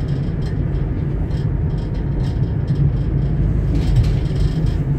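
Steady low rumble of a vehicle driving along a road: engine and tyre noise.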